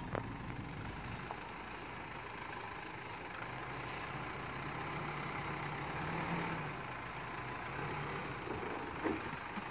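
2010 Nissan Navara D40's 2.5-litre YD25DDTi four-cylinder turbodiesel running at low revs as the truck crawls over rocks in four-wheel drive, rising slightly about six seconds in. A single sharp knock near the end.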